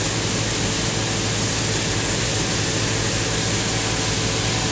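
Plastic sorting line running: a steady hiss over a low machine hum, as shredded plastic flakes pour from the discharge chute into a woven bulk bag.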